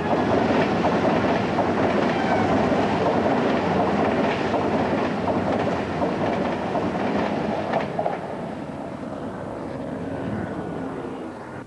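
Pendolino electric high-speed train passing at speed: a steady rush of wheel and air noise with a few sharp clacks of the wheels over rail joints, loudest in the first half and easing off toward the end.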